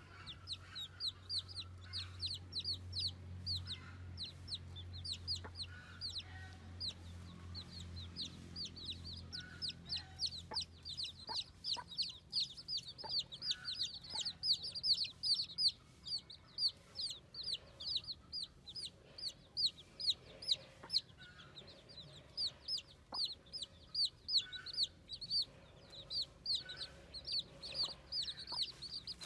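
Baby chicks peeping continuously: many short, high peeps that each fall in pitch, several a second and overlapping, with a few scattered light ticks. A low hum lies underneath for about the first ten seconds, then stops.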